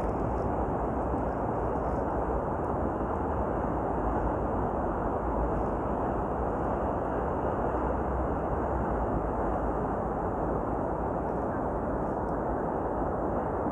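Sea waves breaking and washing, mixed with wind rumbling on the microphone: a steady, even rush with no single crash standing out.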